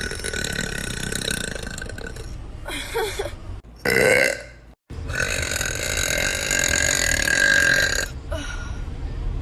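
A girl burping: a series of long, drawn-out burps separated by brief pauses, two of them lasting about three seconds each, with a shorter, louder one about four seconds in.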